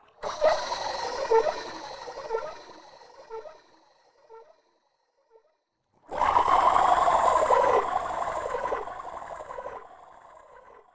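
Two eerie sound effects, each starting abruptly and dying away over a few seconds. The first has a pulsing pattern; the second, about six seconds in, is louder, with tones sliding downward.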